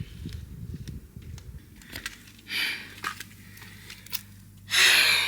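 A person breathing hard and out of breath: a heavy breath about two and a half seconds in and a louder one near the end, with scattered clicks and rustling. Low rumbling noise stops about two seconds in.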